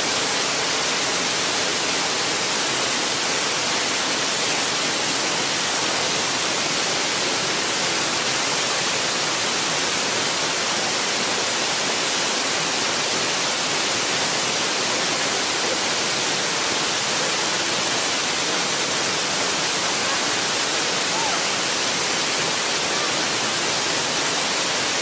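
Waterfall pouring: a loud, steady, even rush of water.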